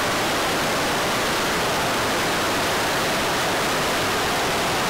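Water cascading over a small rocky waterfall, a steady even rushing sound.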